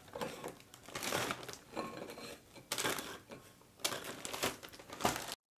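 Plastic zip-lock bag crinkling as digestive biscuits are dropped into it, with light clicks of biscuits against a ceramic bowl. The sound cuts off abruptly near the end.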